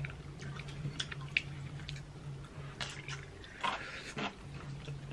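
A person eating oatmeal porridge with a wooden spoon: light clicks of the spoon against a ceramic bowl, then slurping and chewing sounds around three to four seconds in, over a steady low hum.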